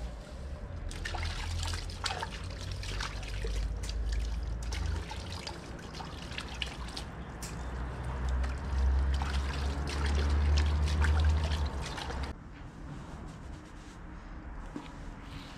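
Water trickling over a low rumble, with crackling splashes throughout; the sound drops away suddenly about twelve seconds in.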